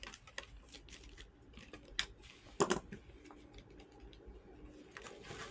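Light clicks and taps of small tools and phone parts being handled during a smartphone repair, with one sharp click about two seconds in and a short louder cluster of clicks just after.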